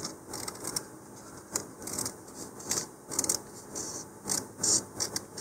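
Small scissors snipping through water-slide decal paper in a series of short, irregularly spaced snips, trimming close around the decal.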